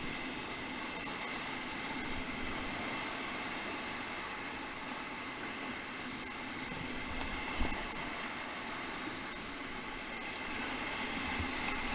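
Steady rushing of Ocoee River whitewater around a raft, with one brief knock about seven and a half seconds in.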